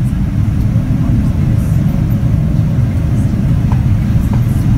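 Steady, loud low rumble inside the cabin of a Boeing 787-9 on approach: engine and airflow noise heard from a window seat beside the GEnx-1B engine.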